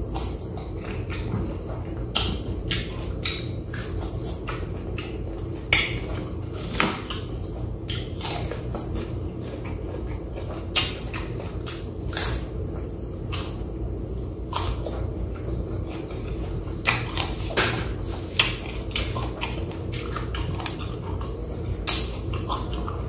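Close-up eating sounds: a person chewing fruit, with irregular sharp mouth clicks and smacks, over a steady low hum.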